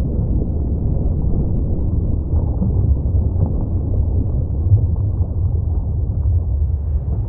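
Deep, steady low rumble of a composed volcanic-eruption soundscape, a rough churning noise without distinct blasts or pitch.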